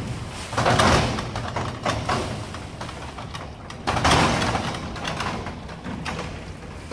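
Corrugated metal roll-up door rattling as two hurricane wind gusts strike it, about a second in and again about four seconds in, each dying away over a couple of seconds.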